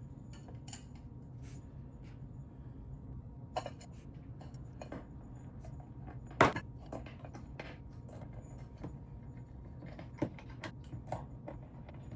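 Scattered small clicks and knocks of screws and the pedal's back plate being handled and fastened during assembly, with one louder knock about six seconds in, over a low steady hum.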